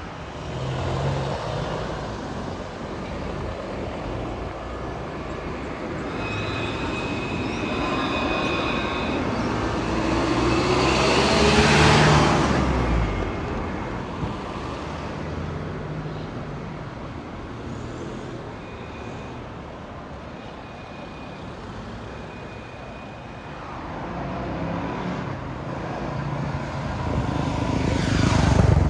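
Street traffic with trams on the line: a steady roar of cars, with a vehicle passing close about halfway through and another right at the end. Faint high-pitched whines come and go in between.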